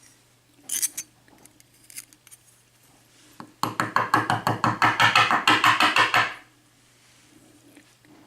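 A few small metal clicks, then nearly three seconds of fast, even metallic rattling, about ten strikes a second, as the springs are worked out of the pin chambers of a Corbin Russwin lock core.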